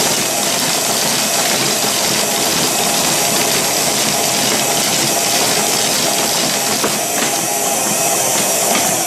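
Paces Races horse-racing slot machine running a race: its motor-driven race mechanism makes a loud, steady mechanical whirring clatter as the toy horses are driven down the track.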